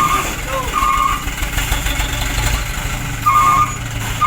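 Radio-controlled construction vehicles running: a steady low engine-like rumble, with several short electronic beeps.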